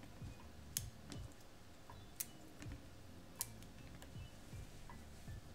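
Hands snapping the stems off shishito peppers and setting them down on a plastic cutting board. There are three sharp clicks about a second and a half apart, with softer taps between them, over a low steady hum.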